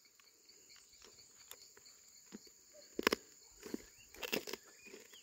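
Insects droning steadily in a high pitch, with a few short knocks or crunches about three and four seconds in.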